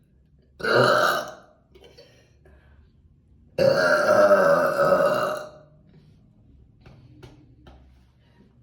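A woman burping twice: a short loud burp about half a second in, then a long, pitched burp lasting about two seconds.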